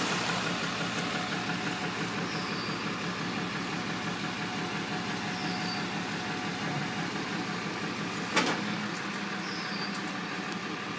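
A truck engine idling steadily, with one sharp click about eight seconds in.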